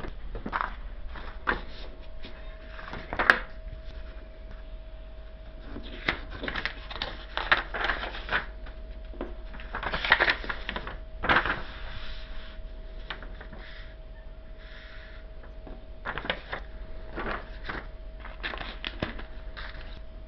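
Irregular clicks, taps and rustling of a plastic scale model kit and its packaging being handled, with a faint steady hum from about a second in.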